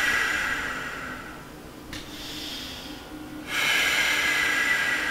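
A man breathing out long and hard through the mouth while pushing deeper into a stretch. A hissing exhale fades over the first second or so, a softer breath comes about two seconds in, and a second long exhale starts suddenly about three and a half seconds in and slowly dies away.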